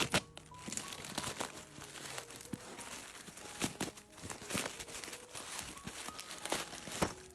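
A parcel being unpacked by hand: plastic packing and tape crinkling and tearing in irregular crackles and snaps.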